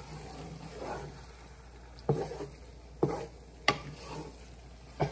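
Wooden spatula stirring grated carrots in a large nonstick pot, knocking sharply against the pot four times in the second half, over a faint sizzle as the carrots cook down on high heat and give off their water.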